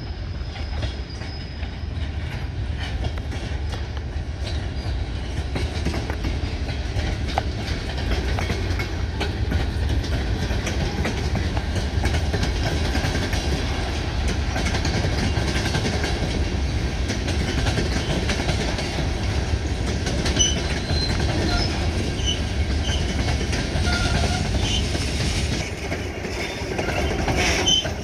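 Freight train cars, covered hoppers and boxcars, rolling past close by: steel wheels clicking over the rail joints over a steady low rumble. It grows louder over the first few seconds as the cars draw near, and brief faint high wheel squeaks come and go in the second half.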